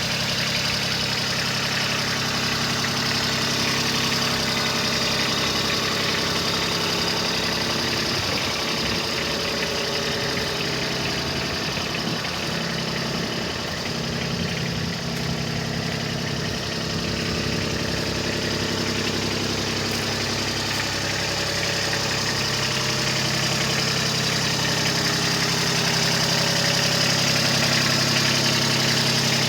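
Kubota B26 tractor loader backhoe's three-cylinder diesel engine idling steadily, with an uneven, wavering stretch in the middle before it settles back to a smooth idle.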